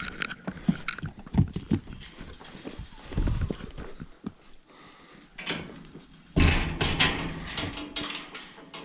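Irregular footsteps and knocks, with a louder scraping, rustling patch about six and a half seconds in.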